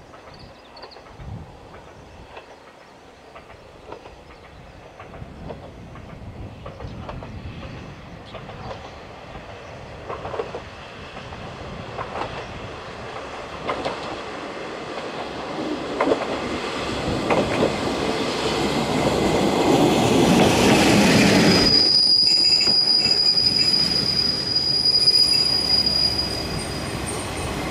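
A Hojo Railway diesel railcar approaching the station, growing steadily louder, its wheels clicking over the rail joints every second or two. Then, about two-thirds of the way in, a steady high-pitched squeal of the wheels and brakes holds for several seconds as it slows.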